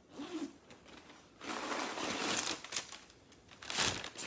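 Zipper on a pebbled leather handbag being pulled open: a long rasp, then a shorter, louder one near the end, with crinkling as the bag is handled.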